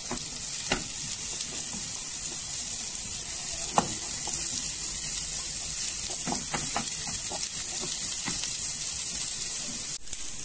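Sliced mushrooms, diced onion and garlic sizzling in a nonstick frying pan, with a steady hiss, while a wooden spoon stirs them and clicks against the pan a few times.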